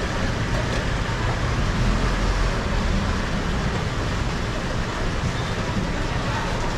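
Steady low rumble with an even hiss above it, with no distinct strikes or events.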